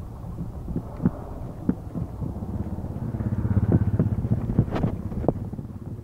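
A motorcycle engine passing close by, growing louder to a peak about three and a half to four seconds in and then fading. Scattered sharp knocks and rattles come through throughout.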